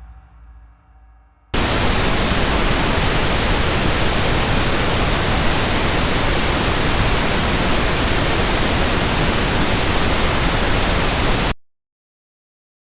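Pink noise test signal: a steady, even hiss across the whole range that starts abruptly about a second and a half in and cuts off suddenly near the end. It follows the faint tail of fading music.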